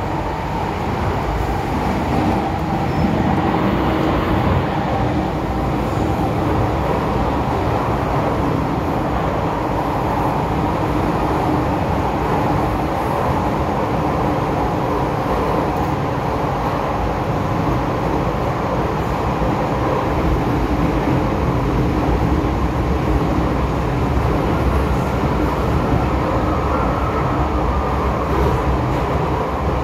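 MTR M-Train subway train running at speed through an underground tunnel, heard from inside the car: a loud, steady rumble of wheels on rail and traction motors with a faint steady hum.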